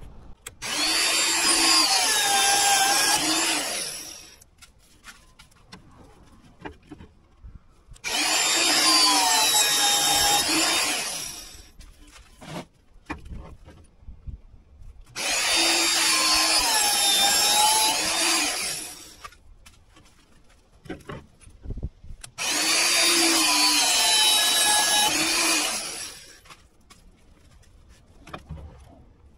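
A power tool cutting steel stock in four separate cuts, each about three and a half seconds long with a few seconds' pause between. Its whine dips in pitch as the tool bites into the metal.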